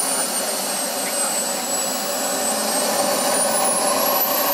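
Frank-Turbine 180 model jet turbine running on the ground in a 1:3.5 scale BAE Hawk, a steady rushing noise with a thin, very high whine on top. The whine falls in pitch over the first second or so, holds, then rises again over the last two seconds.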